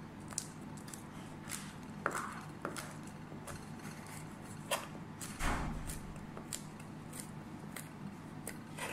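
Ingredients being cut up by hand: irregular short cutting strokes, a few of them longer scraping cuts, with a faint steady hum underneath.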